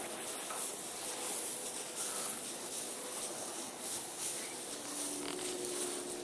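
Steady hiss of outdoor background noise, with a faint steady hum of two low tones coming in about five seconds in.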